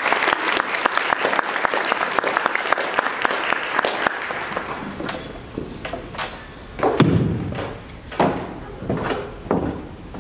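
Audience applauding, fading out after about four seconds, followed by a few separate thumps and knocks at a wooden lectern, the loudest about seven seconds in.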